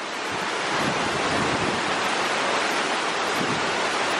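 Waterfall water rushing and splashing down over rocks close by, a steady rush that grows louder over the first second.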